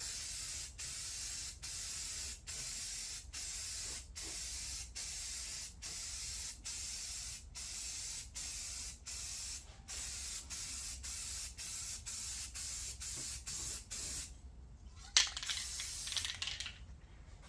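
Aerosol spray paint can hissing in a long series of short passes, the nozzle let go briefly between strokes about every 0.8 s, as a coat of paint is laid on. The spraying stops near the end, followed by a sharp knock and some handling noise.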